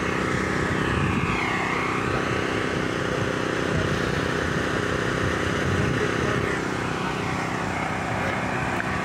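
A steady engine drone made of several low tones, with a faint whine that falls in pitch about a second in and again near the end.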